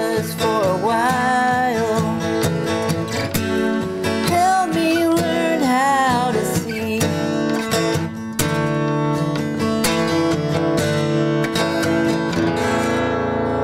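Acoustic steel-string guitar played solo, picked and strummed through an instrumental passage, with the chords left to ring out near the end.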